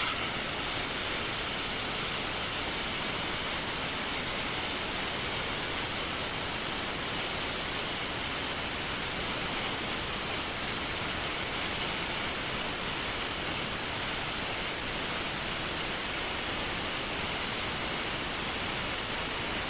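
Tenya CUT50 air plasma cutter cutting through 12 mm steel plate: the plasma arc and its compressed-air jet give a steady, even hiss that holds unchanged throughout.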